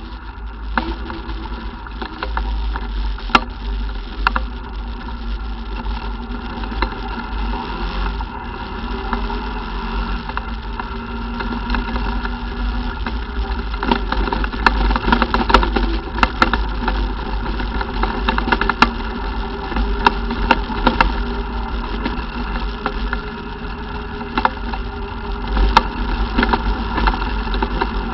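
ATV engine running steadily, with frequent short sharp knocks and rattles over a heavy low rumble.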